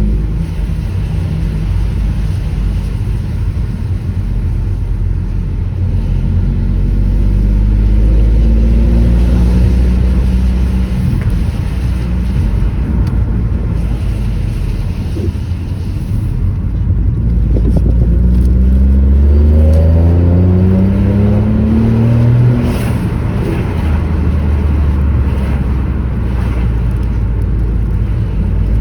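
Stage 2-tuned Ford Focus 1.0 EcoBoost turbocharged three-cylinder engine pulling hard under acceleration, its pitch rising in long climbs and dropping at a gear change about two-thirds of the way through, over steady road rumble.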